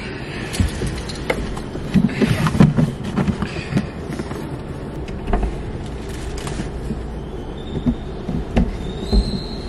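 Knocks, thumps and rustling as a cardboard gift box is handled and put away, over a steady low rumble; a thin high whine comes in near the end.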